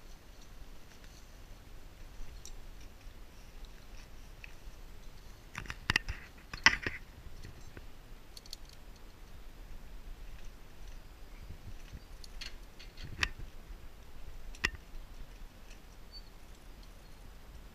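Occasional sharp clicks and knocks of gear being handled, the loudest a cluster about six to seven seconds in, with a couple more near the end, over a faint steady background.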